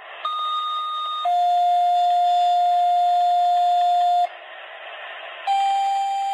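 Fire dispatch two-tone pager alert over radio static: a higher tone for about a second, then a lower tone held about three seconds. After a short stretch of static, a second tone pair begins near the end.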